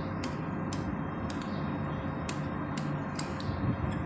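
Faint, slightly irregular ticking, roughly two ticks a second, over a steady background hum.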